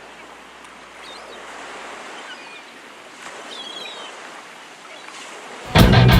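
Ambient intro of a steady, even rushing like ocean waves, with a few faint high chirps. About five and a half seconds in, the heavy metal band comes in suddenly and loudly with drums, bass and distorted guitar.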